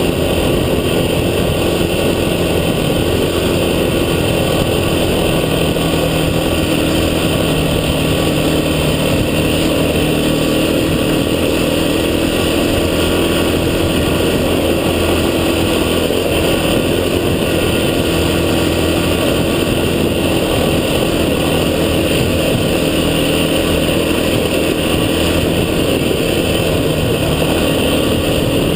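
Off-road vehicle engine running steadily, its pitch holding nearly level throughout, with rumbling road noise beneath.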